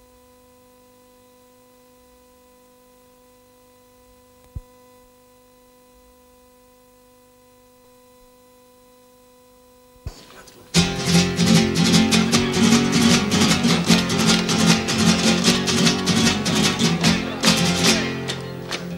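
A faint steady hum with two light clicks, then about eleven seconds in a trio of acoustic guitars breaks in loudly with rapid flamenco-style strumming.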